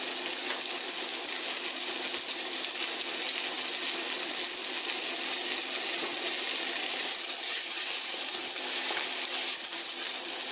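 Vegetables, cabbage and carrot among them, sizzling in oil in a frying pan over high heat: a steady hiss with fine crackles, and a spatula stirring through them near the end. A steady low hum runs underneath.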